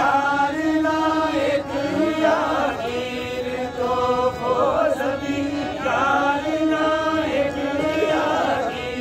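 A group of men singing a folk song together in long, wavering held notes, over a harmonium.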